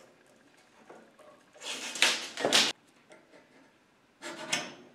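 Handling noise as a tape measure and a square are set against steel Unistrut channel and a cut line is marked: two short bursts of scraping and clatter, one about two seconds in and a weaker one near the end, with quiet between.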